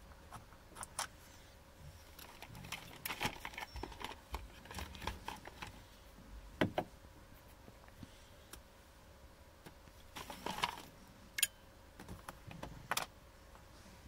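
Light, irregular clicks and rattles of a 5mm Allen key and small bolts being worked and handled in a car's plastic interior door pull, with a few sharper single clicks.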